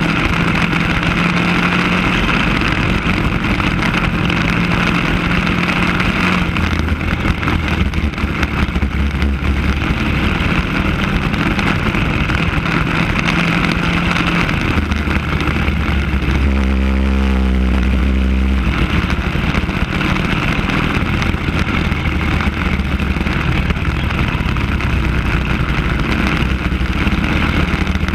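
Racing kart's single-cylinder engine running hard on the track, its note rising and falling with throttle through the corners and straights.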